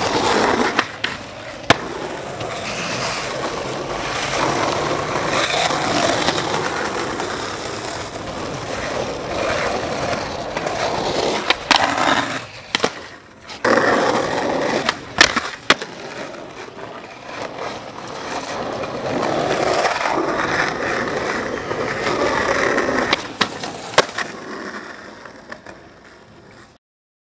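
Skateboard wheels rolling loudly over rough asphalt, broken by several sharp clacks of the board popping and landing. The sound cuts off suddenly near the end.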